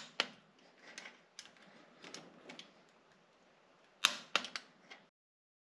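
Ratchet wrench with a crow's-foot head clicking as it tightens fuel injection line fittings. Two sharp metallic clicks at the start and faint handling noise, then a quick run of four or five clicks about four seconds in.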